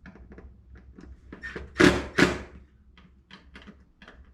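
Two sharp knocks in quick succession about two seconds in, with faint clicks and handling noises around them.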